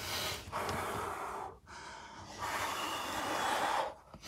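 A man breathing heavily, with a few long, noisy breaths broken by short pauses, while straining through an ab-roller rollout.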